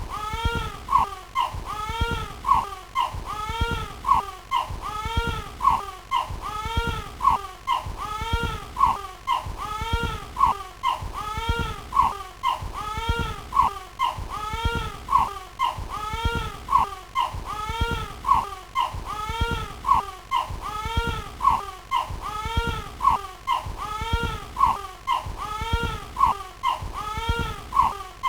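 A high, crying call that rises and falls in pitch, repeated over and over at a very even, loop-like pace of about three calls every two seconds, with a low pulse under each call.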